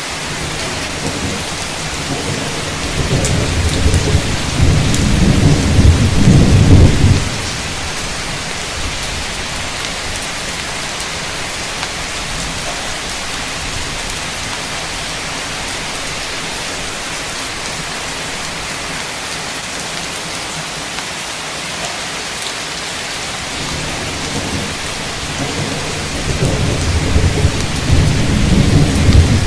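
Heavy rain pouring steadily, with two long rolls of thunder: one builds over the first several seconds and cuts off sharply, and another starts building near the end.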